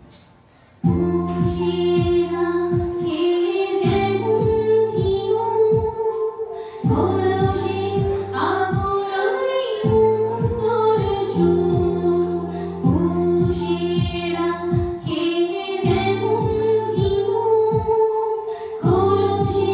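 A woman singing a Bengali song through a microphone over instrumental accompaniment of repeated low plucked notes, coming in after a short pause about a second in.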